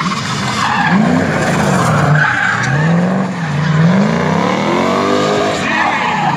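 Drift car sliding sideways, its engine revs rising and falling over and over, with tyres squealing and skidding on the asphalt.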